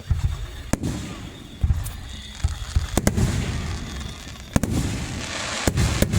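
Aerial fireworks bursting: a string of sharp bangs, some in quick pairs, over deep booms and crackling.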